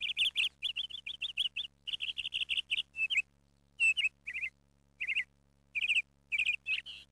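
Small songbird chirping in quick runs of short high notes, dense for about three seconds, then in scattered short phrases with brief gaps.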